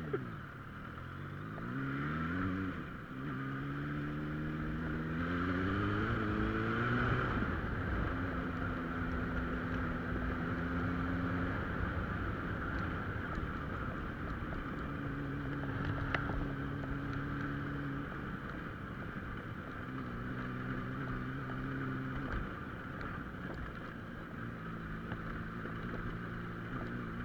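Car engine accelerating through the gears, its pitch rising twice in the first seven seconds, then running at a steady cruising speed with small dips in revs, over steady road and tyre noise.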